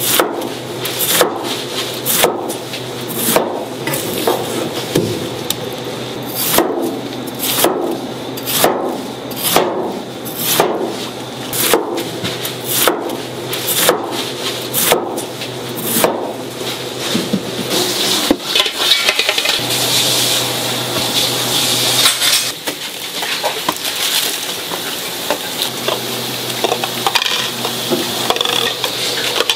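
Knife chopping through fruit onto a cutting board in sharp strokes, about one a second and quickening to about two a second midway. After about 17 s the chopping gives way to a steady rustling, scraping noise.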